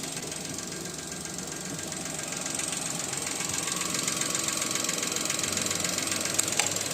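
Maruti Suzuki Alto's three-cylinder petrol engine running with a steady knock, getting a little louder a few seconds in. The mechanic traces the knock to cylinder number 3 and a loose connecting-rod bearing.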